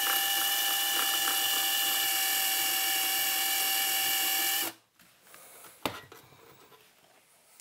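Power drill running at a steady whine as the bit is worked sideways through the metal amplifier chassis to slot out a misplaced mounting hole. It cuts off suddenly after nearly five seconds, and a single light click follows about a second later.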